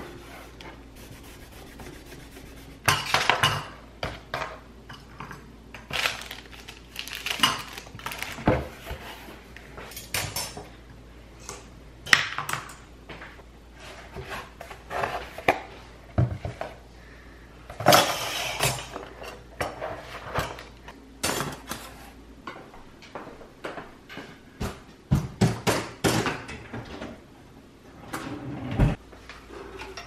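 Stainless steel kitchen utensils (ladles, tongs, whisk, mesh strainer) clinking and clattering as they are picked up and set down in a drawer organizer tray. The knocks come in irregular clusters, starting about three seconds in.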